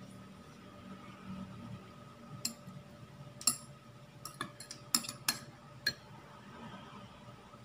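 Tableware clicking at a meal: a scatter of about eight sharp clicks and taps of fork and knife against plates, several in quick succession around the middle.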